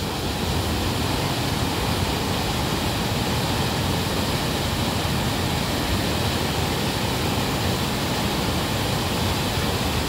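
River water gushing out through the arched openings of a concrete structure into churning white water, a steady, unbroken rush.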